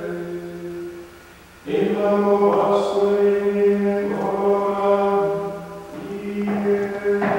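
Monks chanting in unison plainchant, holding long steady notes on one reciting pitch with small drops at the ends of phrases. There is a short break about a second and a half in, and then the chant resumes.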